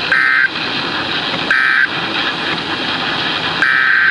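Emergency Alert System SAME digital data bursts: harsh two-tone buzzing squawks over radio hiss. Two short bursts come just after the spoken message ends, marking its end, then a longer burst starts near the end, opening the next alert.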